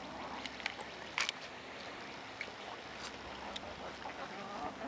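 Quiet outdoor background noise with a few short, sharp clicks scattered through it, the loudest a little over a second in.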